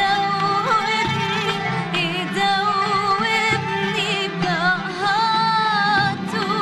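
A solo singer performing an Arabic song over instrumental accompaniment, the voice's melody wavering and ornamented.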